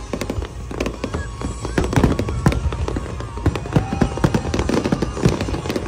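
Fireworks going off in quick, irregular succession, bangs and crackles overlapping, with music playing underneath.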